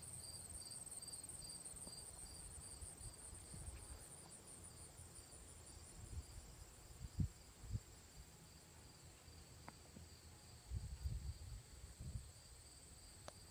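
Insects singing outdoors: a faint steady high trill, joined at first by a pulsing chirp about three times a second that fades out a few seconds in. A few low gusts of wind on the microphone.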